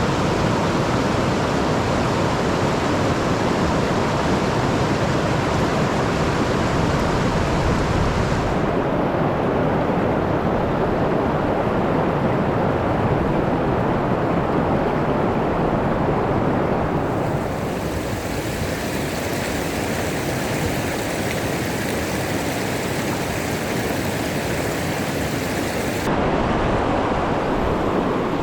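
Rushing river current, a steady loud rush of water that changes in tone abruptly three times.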